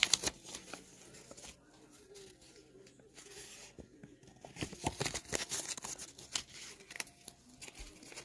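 Paper being handled: rustling and crinkling in irregular bursts with small clicks as folded sheets and a letter are opened and moved, loudest right at the start and again about five seconds in.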